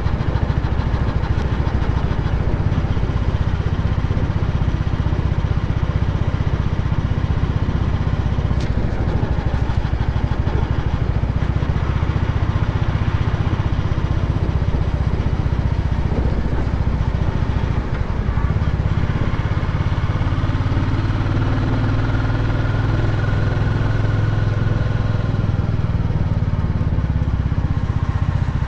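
Royal Enfield Bullet's single-cylinder engine running steadily as the motorcycle is ridden along the road.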